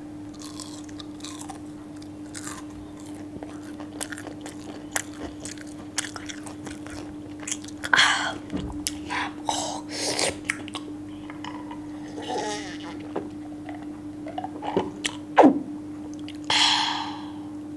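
Close-miked chewing and biting of crispy breaded fish sticks: irregular wet mouth clicks and light crunches over a steady low hum. Near the end comes a louder breathy sound as he drinks from a glass mug.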